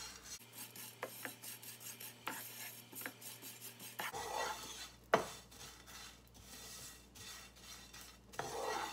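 Wooden spatula stirring and scraping dried sakura shrimp around a nonstick frying pan in repeated short strokes, with one louder tap of the spatula on the pan about five seconds in.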